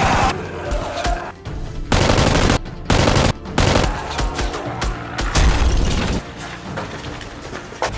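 Several short bursts of rapid automatic gunfire, added as sound effects, over background music.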